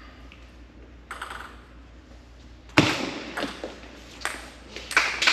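Table tennis rally: a plastic ball clicking sharply off paddles and the table. It starts with a loud hit about three seconds in, followed by quicker clicks.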